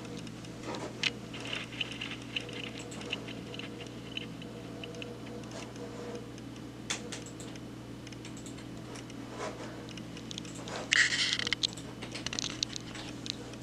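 Scattered keystrokes and clicks on a computer keyboard over a steady electrical hum, with a brief louder scratchy burst about eleven seconds in.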